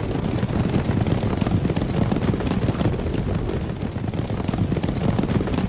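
Stampede of a large herd of running horses: many feet pounding dirt at once, merging into a loud, steady rumble.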